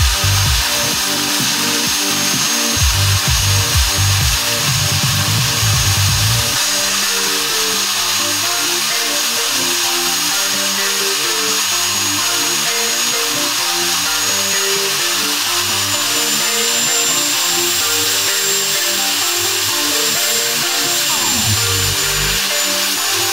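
Homemade two-stage jet engine built from two turbochargers running: a loud, steady rushing hiss with a thin high turbine whine that rises slightly past the middle and eases back near the end. A low, uneven rumble sits under it for the first six seconds or so.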